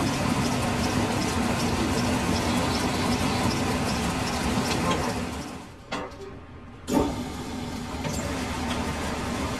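Metal lathe running steadily with a low hum. About six seconds in the running noise drops away for about a second with a click, then a sharp knock, and the running noise picks up again.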